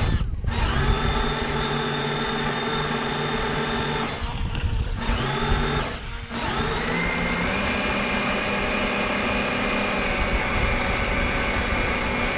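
Electric drive motor of a HobbyEngine Southampton RC model tugboat whining steadily under throttle. It drops out briefly a few times and picks up speed a little past halfway, over a rushing noise of water and wind.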